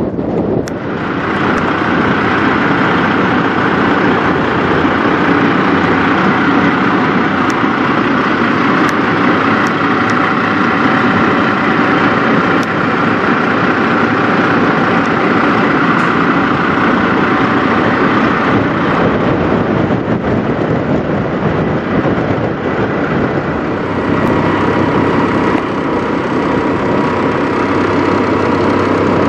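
Semi-truck diesel engines idling, a steady running sound whose character shifts a little about two-thirds of the way in, when a steady tone joins it.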